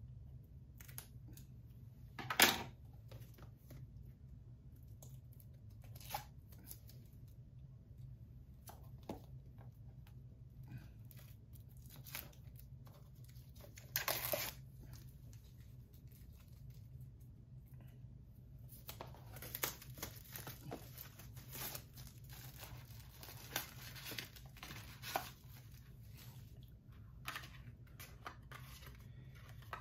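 Scissors snipping into the plastic shrink-wrap of a Blu-ray case, then the wrap being torn and peeled off with crinkling. Scattered sharp snaps, the loudest about two seconds in and again midway, and a longer stretch of steady crinkling in the last third.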